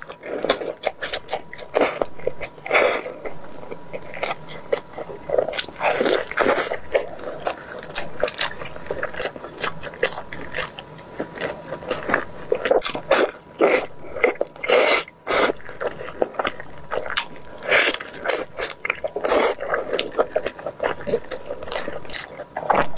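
Mukbang eating sounds: biting and chewing braised pork knuckle, with many short, irregular mouth smacks and clicks throughout.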